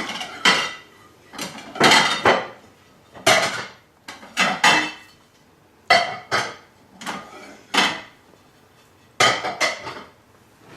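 Plates and cutlery being set out on a table: a dozen or so irregular clinks and clatters of dishes and silverware, each ringing briefly.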